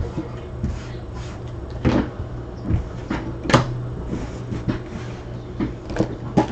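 Trading cards and packs being handled: scattered light clicks and rustles, with sharper knocks about two seconds in and again about three and a half seconds in, over a steady low hum.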